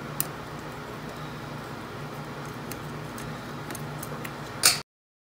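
Light clicks and taps of a small screwdriver and tiny plastic and metal parts being handled on a micro FPV drone frame, over a low steady hum. There is one sharp click just after the start and a louder click near the end, then the sound cuts off abruptly.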